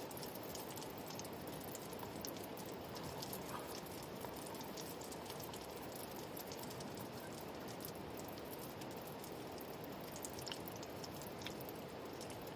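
Food deep-frying in hot oil: a steady sizzle with many small scattered pops.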